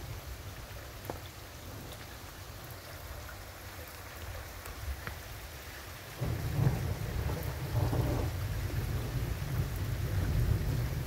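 Thunderstorm: steady rain hissing, then a long, low rumble of thunder sets in about six seconds in and keeps rolling, louder than the rain.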